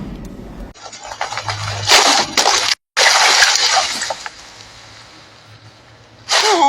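Animated-film crash-landing sound effects: crashing and splashing in two bursts broken by a sudden cut to silence, the second fading away into quiet hiss.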